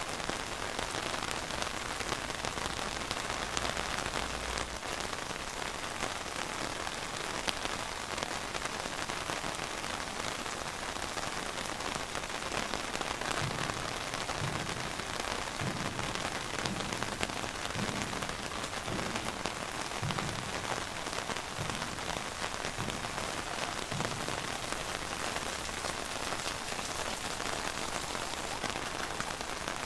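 Steady rain falling and pattering on surfaces, with some soft low thuds of heavier drops in the middle stretch.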